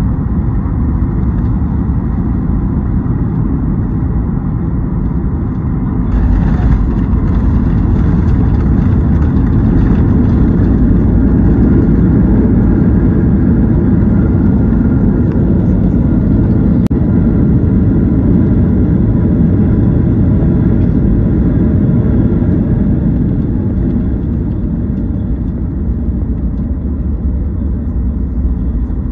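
Cabin noise of a Boeing 737 MAX 8 moving on the ground after landing: a steady rumble of engines and rolling, which grows louder about six seconds in and eases off near the end.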